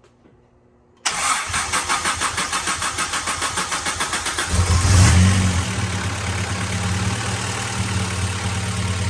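Acura Integra GSR's B18C1 four-cylinder engine is cranked by the starter about a second in, with a rapid pulsing, for about three and a half seconds. It then catches with a brief rev and settles into a steady idle. The long crank is because the car has been sitting for a while; this is its first start after the clutch and flywheel job.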